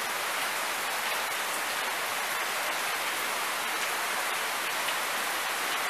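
Steady heavy rain from a passing hurricane squall, an even hiss with faint scattered drop ticks.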